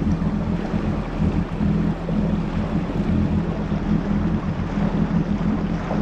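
Yamaha GP1800R SVHO jet ski's supercharged four-stroke engine running steadily at low, no-wake speed, a constant low hum, with wind buffeting the microphone.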